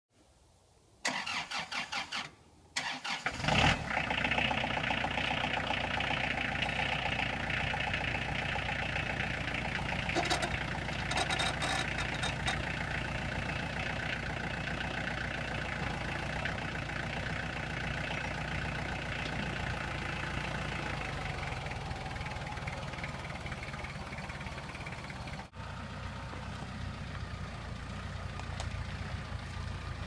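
Kubota compact tractor's diesel engine being started: the starter cranks briefly, stops, cranks again and the engine catches about three and a half seconds in, then runs steadily, with a short clatter about ten seconds in.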